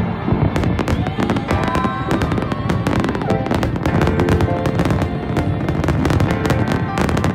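Fireworks going off in a rapid series of bangs and crackles, with music playing underneath.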